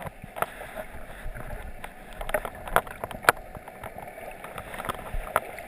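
Underwater ambience heard through an action camera's waterproof housing: a muffled, steady rush of water with many irregular sharp clicks and pops.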